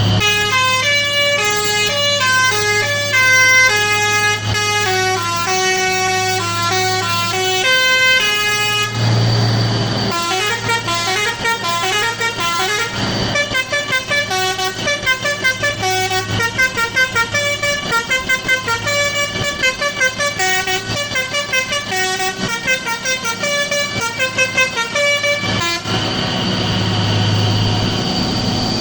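A multi-tone musical air horn (telolet type) playing quick melodic runs of stepped notes over a steady engine drone. It pauses briefly about 9 s in, then plays a faster run that stops about 25 s in.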